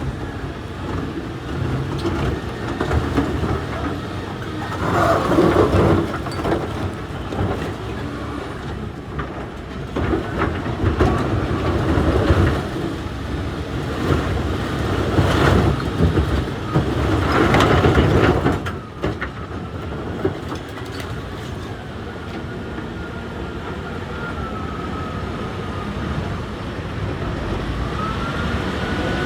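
Heavy machinery working, with a heavy engine running under loud surges of rumbling and grinding noise three times in the first two thirds. After that it settles to a steadier running sound with a faint whine that rises and falls.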